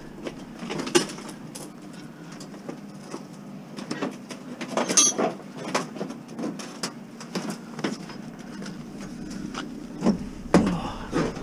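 A sheet-metal boiler being handled and lifted: scattered knocks, clunks and scrapes of thin metal casing, with the loudest clunks near the end, over a steady low hum.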